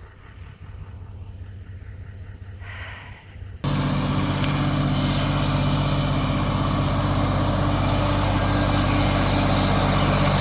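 Engine of a Lincoln SA250 engine-driven welder-generator running steadily, coming in abruptly about three and a half seconds in after near quiet.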